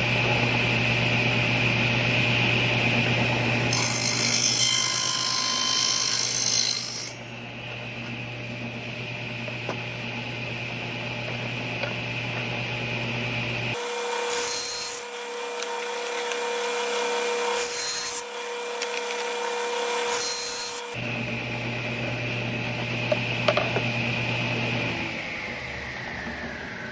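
Table saw running with a steady motor hum and blade whine, its blade cutting spline slots into the corners of a mitered wooden picture frame pushed through on a 45-degree jig, one pass at a time. Near the end the saw is switched off and the whine falls as the blade spins down.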